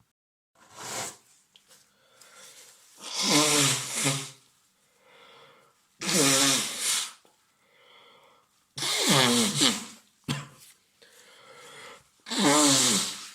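A man sneezing four times in a row, about every three seconds, with quieter breaths between: an allergic sneezing fit brought on by cats.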